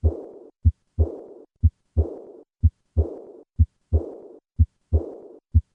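Heart sounds beating regularly about once a second. Each cycle is a short first heart sound, then the second sound followed at once by a high-pitched, blowing, decrescendo diastolic murmur, heard at rest. This murmur is typical of aortic regurgitation.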